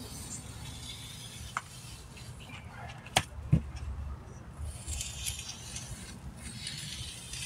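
Thin metal tool scraping as it scores joint lines into fresh mortar, with two sharp clicks a little after three seconds and a low rumble underneath.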